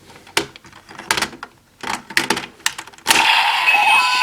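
Hard plastic clicks and snaps as a Core ID and raise buckles are fitted into a DX Kamen Rider Geats toy transformation belt. About three seconds in, the toy's speaker starts a loud electronic sound effect.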